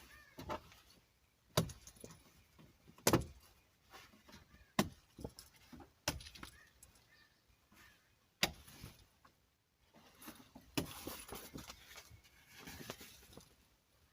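Sharp metal clicks every second or two, metal snap buttons being pressed shut on a fabric window curtain, with a stretch of fabric rustling near the end.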